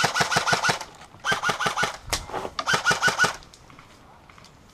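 M4-style airsoft rifle firing three short bursts of about ten shots a second, each shot a quick mechanical clack, with a single sharp crack between the second and third burst.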